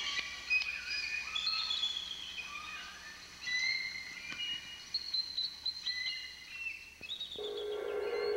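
Several birds singing at once: a chorus of short whistled notes held at different pitches, overlapping. Music fades in near the end.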